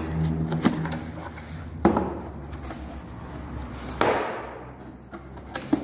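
Cardboard box being opened by hand: a few sharp knocks and scrapes as the lid flaps are pulled up and apart, over a steady low hum.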